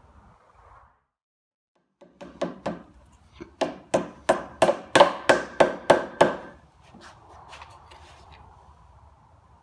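Hammer tapping wooden plugs into screw holes in the side of a wooden shelf unit: a few light taps, then a run of about ten sharper strikes at roughly three a second.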